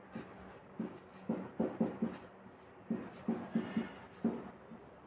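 Whiteboard marker writing on a whiteboard: a dozen or so short, irregular squeaks and taps as words are written.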